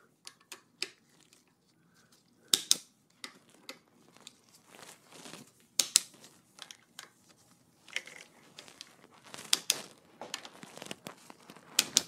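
Scattered sharp clicks and knocks, with rustling between them, as gloved hands work a hand tool on an e-bike's handlebar stem bolts. The loudest click comes just before the end.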